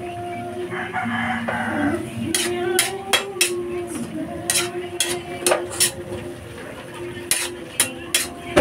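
A metal spatula clanking and scraping against a metal wok as chopped cabbage is stir-fried, with sharp knocks scattered irregularly throughout, over a sustained background tune.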